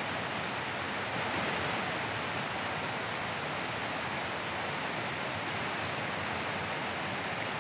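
Steady rush of running water from a mountain stream running high after heavy rain.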